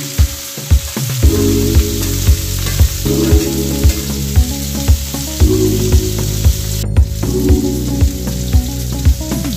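Sliced bitter gourd sizzling in hot oil in a frying pan while being stirred with a spatula. Under it runs background music with a steady beat, about two thumps a second.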